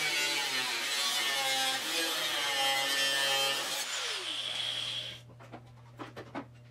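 Angle grinder's disc biting into the sheet-steel rear deck panel, then lifted off and switched off about four seconds in, its pitch falling as it spins down. After that only a steady low hum and a few light clicks.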